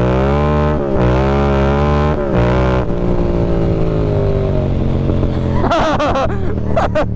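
Yamaha MT-07 parallel-twin through an aftermarket M4 exhaust, accelerating hard. Its pitch climbs and drops back three times as it shifts up through the gears, then settles into a steadier, slowly falling note, with a few sharp cracks near the end.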